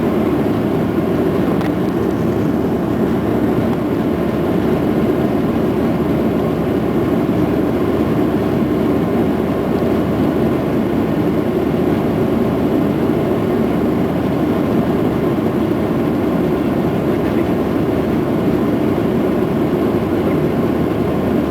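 Steady engine and air noise heard inside the cabin of a Boeing 737-700 during takeoff, its CFM56-7 turbofans running at high thrust.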